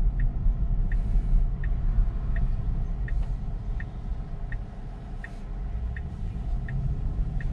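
Tesla's turn-signal indicator ticking evenly, about three ticks every two seconds, signalling a left turn, over a steady low road and tyre rumble in the cabin.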